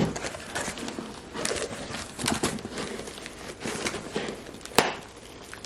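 Hands handling packages and their contents: scattered rustles, taps and knocks, with one sharp knock near the end.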